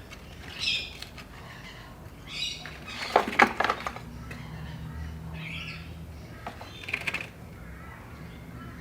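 Birds squawking several times in short calls. A loud clatter of knocks comes about three seconds in, and a steady low hum starts soon after.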